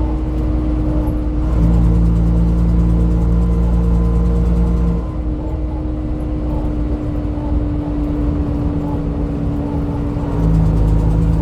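Dennis Dominator double-decker bus engine running under way with a steady whine over it. The engine pulls harder from about two seconds in, eases off after about five seconds, and picks up again near the end.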